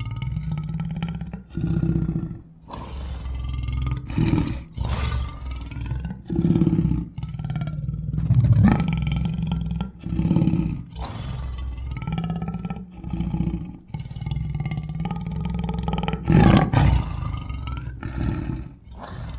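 A string of animal-style roar and growl sound effects made for a cartoon rhino character: about a dozen short roars, each a second or two long, one after another with brief gaps.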